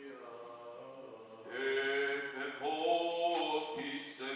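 A man chanting in the Greek Orthodox funeral service, in long held notes that step from one pitch to the next, growing louder about a second and a half in.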